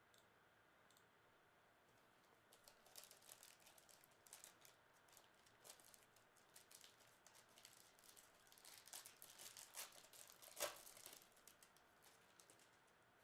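Faint handling noise: a scattered run of light clicks and crinkles, with one sharper click near the end.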